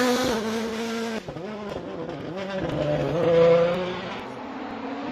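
Turbocharged four-cylinder engine of a World Rally Car at full throttle on a gravel stage. After a cut about a second in, the engine note drops and climbs through gear changes and is loudest about three and a half seconds in, then fades.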